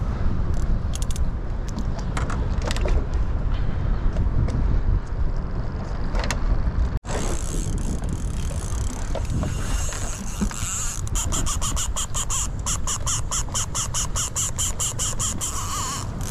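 A conventional fishing reel clicking fast and evenly, about five clicks a second, from about eleven seconds in, as line runs off under a hooked fish's pull. A steady low rumble runs underneath.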